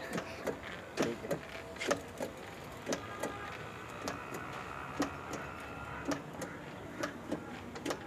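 Hand-pumped knapsack sprayer in use: irregular clicks and knocks, about one or two a second, from its pump lever and tank while it sprays.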